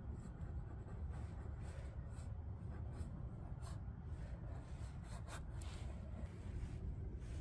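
Paintbrush scrubbing paint onto a painting panel in faint, irregular scratchy strokes, over a steady low rumble.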